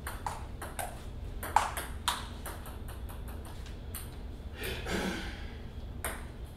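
Table tennis ball clicking off the paddles and the table in a quick rally that ends about two seconds in, followed by a few sparser clicks and one more sharp click near the end.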